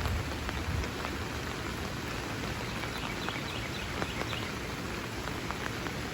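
Steady rain falling outdoors, an even hiss with scattered individual drops ticking on nearby surfaces. A low rumble sits under it for about the first second.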